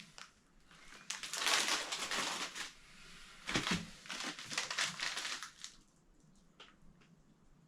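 Plastic packaging crinkling and rustling as items are handled and unwrapped, in two stretches, with a few light clicks before it goes quiet.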